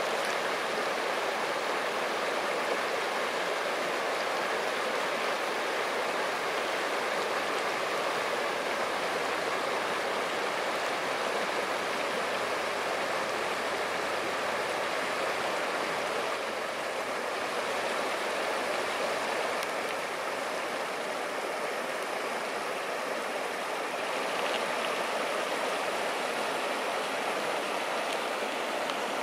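Shallow, clear mountain stream running steadily over cobbles and rounded stones.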